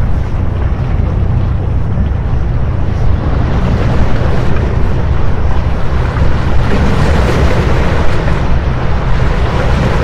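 Wind buffeting the microphone over waves washing against the rocks of a seawall: a continuous heavy rumble with surf noise that grows a little stronger about four seconds in.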